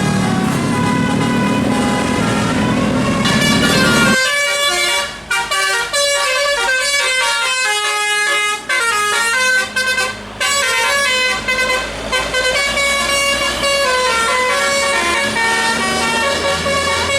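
A bus's telolet musical air horn playing a quick melody of short stepped notes, starting about four seconds in. Before it there is a low vehicle rumble.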